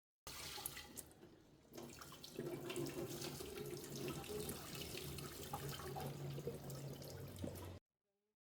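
Water running from a tap into a sink, splashing steadily; it starts and stops abruptly, with a quieter stretch about a second in before the flow gets louder.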